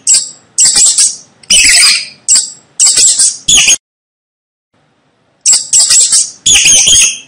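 Mice squeaking: a rapid series of short, shrill squeaks, several a second, that break off for about a second and a half in the middle and then start again.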